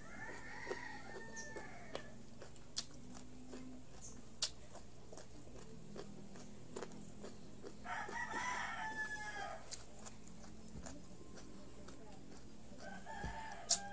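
A rooster crowing three times: near the start, about eight seconds in, and again near the end, each crow lasting about a second and a half. In between come scattered crisp crunching clicks of someone chewing raw cucumber and carrot.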